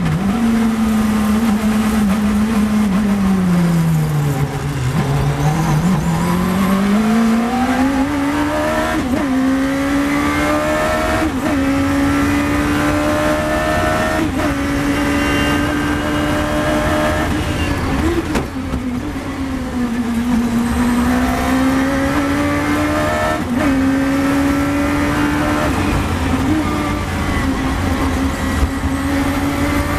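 Radical SR3's 1500cc engine heard onboard at speed. The engine note drops as the car slows in the first few seconds, then climbs hard with several quick gearshifts. It falls again briefly about two-thirds of the way through before pulling up through the gears once more.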